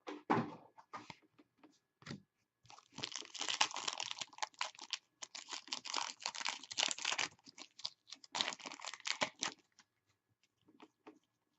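Trading card packs and cards being handled: a dense run of rapid crinkling and clicking from about three seconds in to near the end, as wrappers are torn and cards are flipped through.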